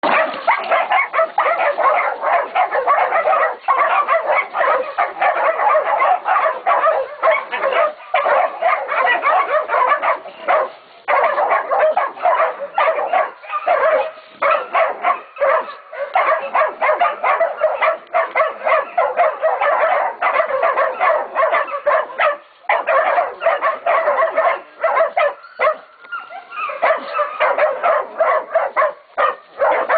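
A pack of young Catahoula and Black Mouth Cur puppies baying a hog: many quick barks and yips crowding over one another almost without a break, the dogs holding the pig at bay.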